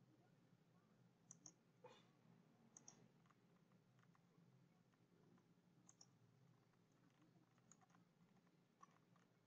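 Faint computer mouse clicks, several quick pairs a second or two apart, over near silence with a steady low hum.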